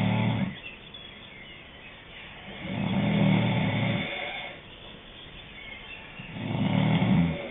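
Snoring: a low, buzzing snore with a pause between, repeating about every three and a half seconds. One snore trails off just after the start, one comes about three seconds in, and another near the end.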